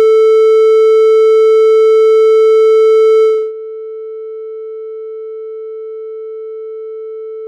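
Synthesized 440 Hz test tone, steady and bright with many overtones. About three seconds in it drops in volume, its high overtones fall away and its pitch warbles slightly, simulating headphones being taken off: lower volume, filtered highs and a Doppler warble.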